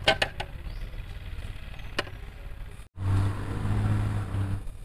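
A few sharp clicks near the start and one about two seconds in, then after a brief break a steady low mechanical hum for about a second and a half.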